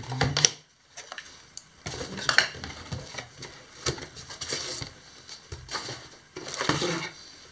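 Cardboard box and packaging being handled and unpacked: scattered knocks and scrapes of cardboard, with a longer rustle a little before the end.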